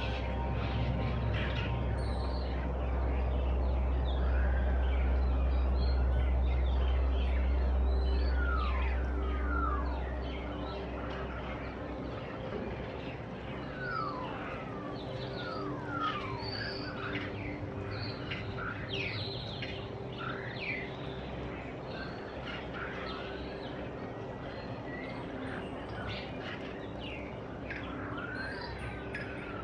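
A group of starlings, adults with their young, chirping and calling in a tree: many quick falling whistles and chirps, busiest from about eight seconds on. A low rumble runs under the first ten seconds and then fades.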